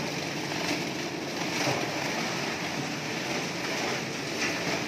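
A machine that separates expired biscuit and chip packets from their plastic wrappers, running steadily. It makes a continuous dense mechanical noise with faint knocks as it churns the packets.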